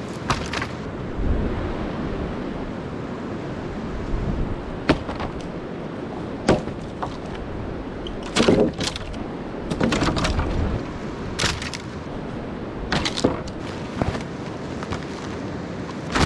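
Sticks and dead branches cracking and knocking together as wood is gathered: a dozen or so sharp snaps, some in quick clusters, over a steady rushing noise.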